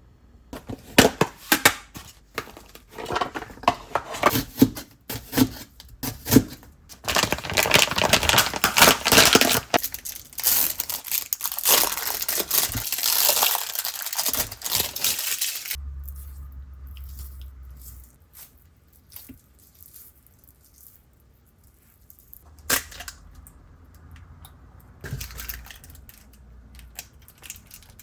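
Plastic food packaging being crinkled and torn open during kitchen prep. Scattered sharp clicks come first, then about eight seconds of dense rustling, then a few isolated knocks.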